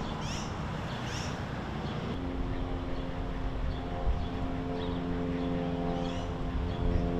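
A motor running steadily, with a steady pitched hum setting in about two seconds in.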